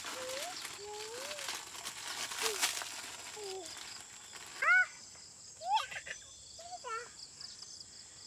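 Crickets chirring in a steady high drone, with short rising and falling calls scattered through. The loudest call comes a little past halfway. A brief rustling clatter comes about two and a half seconds in.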